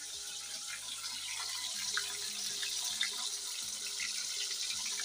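Chicken pieces sizzling as they fry in hot oil in a pan on a gas stove: a steady hiss that grows slightly louder.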